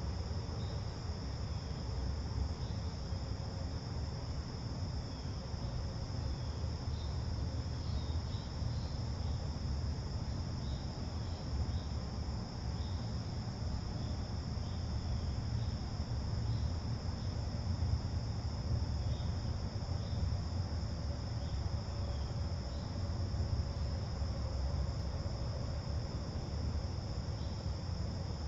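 Late-summer insect chorus: a steady, unbroken high-pitched trill, over a low steady rumble.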